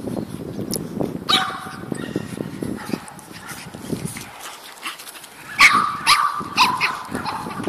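Griffon belge puppies play-fighting, giving short high-pitched barks and yips: one about a second in, then a quick run of several near the end.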